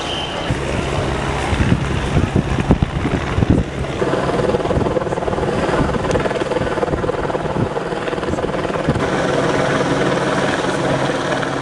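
A steady engine drone, with gusts of wind buffeting the microphone during the first few seconds.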